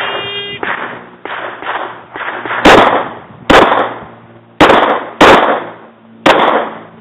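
A shot timer beeps at the start, then a few quieter cracks follow. Then a pistol fires five loud shots, spaced roughly a second apart, at a USPSA stage.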